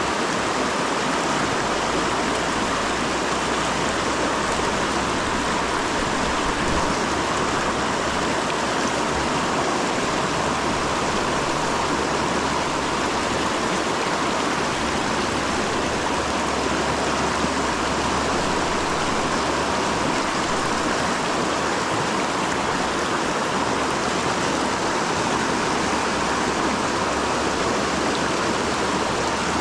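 Mountain river running, a steady rush of water with no letup.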